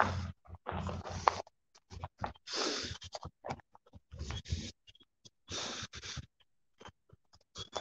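Breathing and rustling close on a phone's microphone while walking: irregular bursts of breath and rubbing noise with short gaps between.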